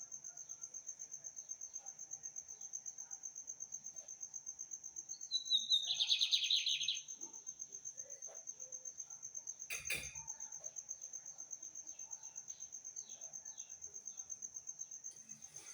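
A cricket's fast, steady, high chirring runs throughout. About five and a half seconds in, a seedeater sings one short phrase of about a second and a half, the loudest sound here. A single sharp click comes about ten seconds in.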